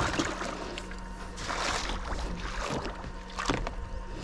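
Water sloshing and splashing, with scattered short knocks, over a faint steady hum.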